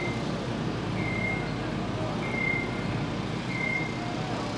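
Reversing alarm of a construction vehicle beeping, one short high beep about every second and a quarter, over the steady rumble of machinery.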